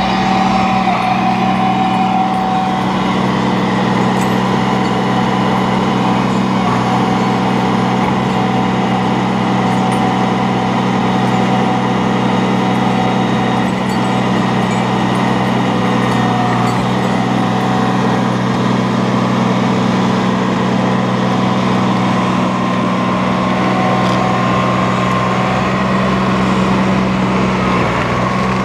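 Caterpillar bulldozer's diesel engine running steadily, with faint higher whines coming and going.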